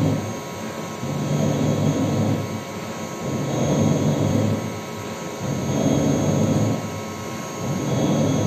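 CNC lathe running its automatic threading cycle: the same cutting-and-feed sound repeats about four times, a pass roughly every two seconds, each lasting a little over a second, over the machine's steady hum.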